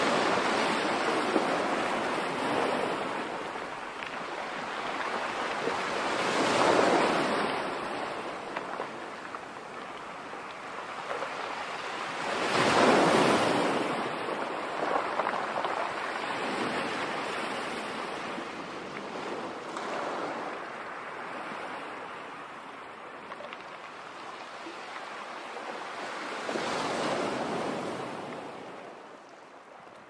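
Sea waves washing onto the shore in slow surges, the loudest about 13 seconds in, with others near 7 and 27 seconds, dying away at the very end.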